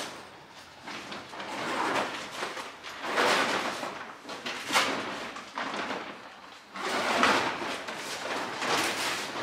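Motorcycle cover rustling in several long sweeps as it is pulled and gathered off the bike, with one brief sharp sound about five seconds in.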